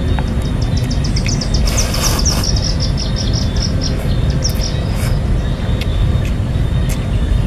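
A steady low rumble, with a small bird's rapid trill of repeated high chirps from about a second in until about five seconds in.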